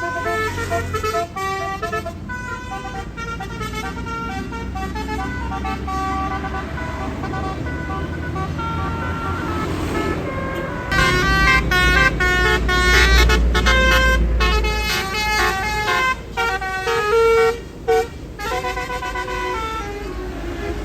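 Bus 'telolet' musical horns of the Basuri multi-trumpet type playing quick stepped tunes, note after note. About eleven seconds in they get louder, with a bus engine rumbling heavily underneath for a few seconds.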